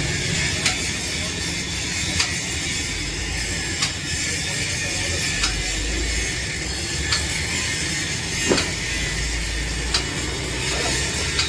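Steady machine noise with a sharp click repeating about every second and a half.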